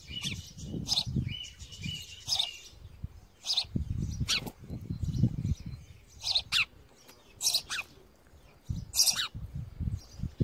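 House sparrows chirping: a string of short, sharp chirps, several dropping quickly in pitch, as an adult comes to a fledgling at its nest. A low rumble runs underneath.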